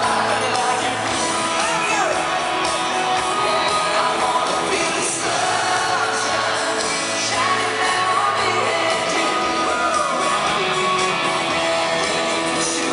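Live country-pop band performing loudly, with a male lead vocal and electric guitar, heard from the audience through the venue's sound system.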